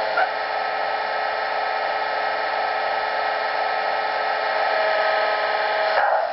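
Märklin 36426 BR 232 'Ludmilla' model diesel locomotive's sound decoder playing a steady diesel engine sound through its small built-in speaker, thin and with no deep bass.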